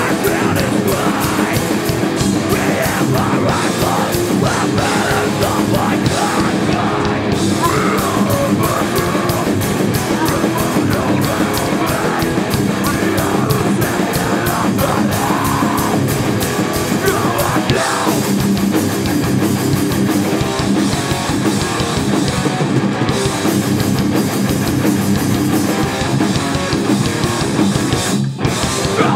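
Hardcore punk band playing live: distorted electric guitars, bass and drums at full volume, with shouted vocals. The band drops out for a split second near the end.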